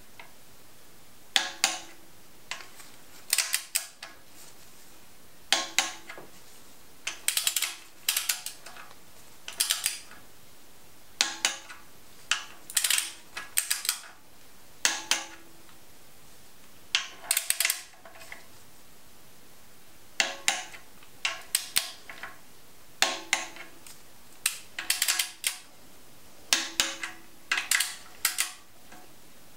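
Torque wrench ratcheting in short runs of quick clicks, a burst about every two seconds, as the camshaft bearing cap bolts are run down and torqued to 15 Nm.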